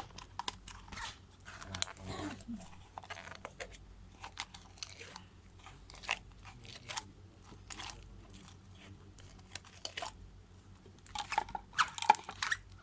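Freshly made glue slime being squeezed and stretched by hand, giving irregular sticky clicks and crackles, with a louder flurry near the end. The slime is still stiff.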